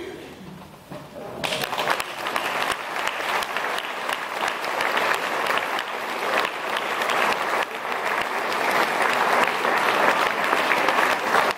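Audience applauding: after a short hush, clapping breaks out about a second and a half in and carries on steadily.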